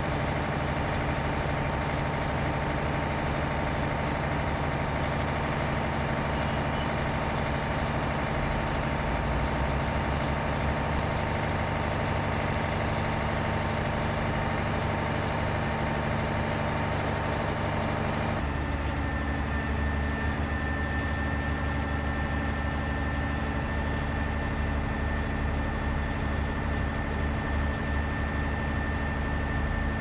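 Diesel engine of a 46 m truck-mounted boom concrete pump running steadily while the hydraulic boom unfolds. About two-thirds of the way through the sound changes abruptly to a deeper engine note with a thin, steady high whine over it.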